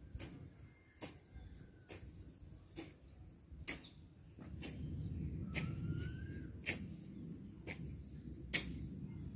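Garden hoe chopping into soil and weeds, with a sharp strike about once a second. From about halfway through, a low, steady scraping runs under the strikes as the blade drags earth and cut weeds. A bird chirps briefly and faintly near the middle.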